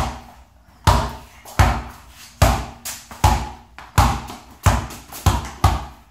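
A basketball being dribbled on a concrete floor. It bounces steadily about eight times, each bounce a sharp thud with a short ring after it, and the bounces come a little quicker near the end.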